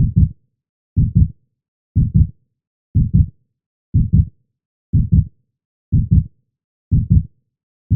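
Heartbeat sound effect: a steady lub-dub, two low thumps in quick succession about once a second, with silence between beats.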